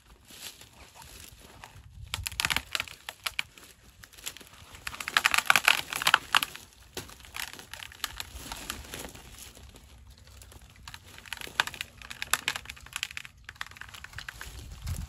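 Twigs and branches crackling and rustling as a partly cut hedge tree, a pleacher, is pulled down over the laid hedge. The crackling comes in two bouts, the loudest about halfway in and a shorter one near the end.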